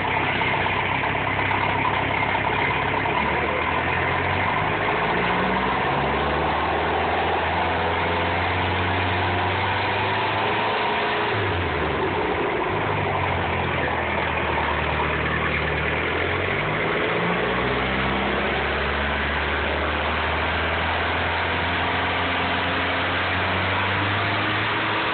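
MerCruiser 3.0 four-cylinder sterndrive engine idling steadily, with its speed wavering up and down a few times.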